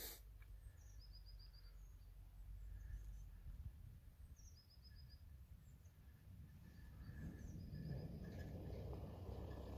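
A small songbird singing faintly, repeating the same short song three times: a high note followed by a quick run of about five slightly lower notes. A click right at the start, and a low rumble of wind or handling noise grows over the last few seconds.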